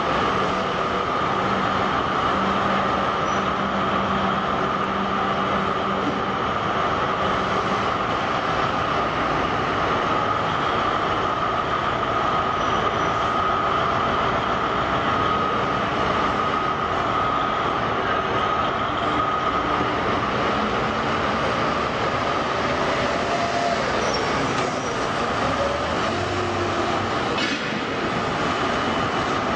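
Giant LeTourneau diesel-electric wheel loader running as it creeps forward, a steady drone with a high whine over it.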